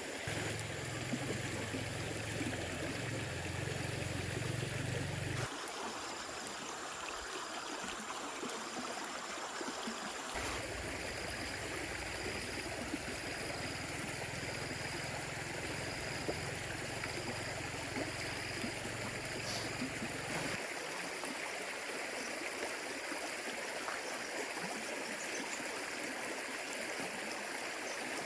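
Stream water flowing and babbling steadily, with the sound shifting abruptly a few times.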